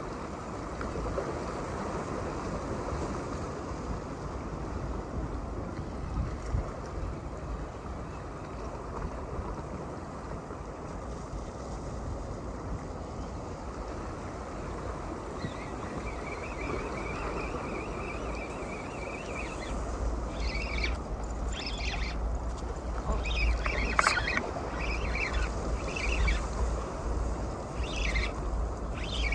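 Water washing against a concrete seawall, with wind buffeting the microphone that grows stronger in the second half. Short high chirps and ticks come and go in the second half.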